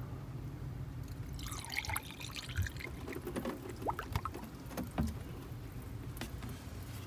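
Coolant glugging and trickling as it is poured from a plastic bottle into the cooling system's filler neck, topping it up after a radiator replacement, with a few sharp clicks from about halfway through.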